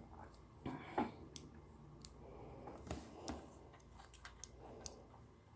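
Small plastic Lego pieces being handled and sorted by hand: faint scattered clicks and light taps, a few louder ones about a second in and around three seconds in.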